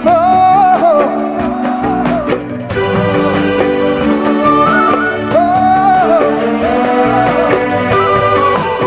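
Live band playing an Assamese Bihu song: drum kit and keyboard under a bending melody line that swells about halfway through.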